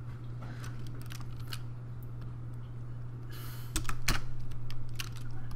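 Computer keyboard and mouse clicking: scattered single clicks, with a short hiss about three seconds in and a steady low hum underneath.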